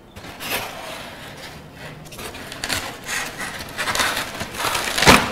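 White polystyrene foam packing blocks rubbing and scraping against one another as they are lifted off a packed machine: a string of irregular scratchy scrapes, the loudest near the end.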